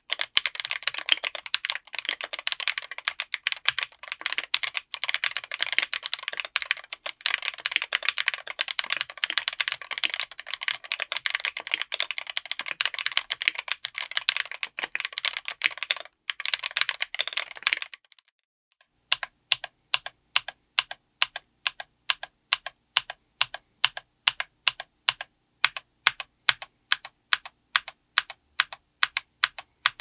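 Mechanical keyboard with Akko V3 Cream Black Pro linear switches, SA-profile ABS keycaps, an FR4 plate and an aluminium case, typed on quickly. After a short pause about 18 seconds in, single keys are struck one at a time, about three strokes a second.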